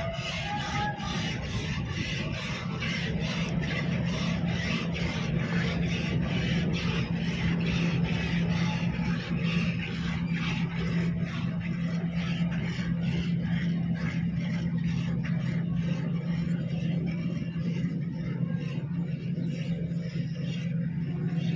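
Hand-milking: jets of milk squirting into a steel pail in an even rhythm, about three squirts a second, each with a short rasping hiss. A steady low hum runs underneath.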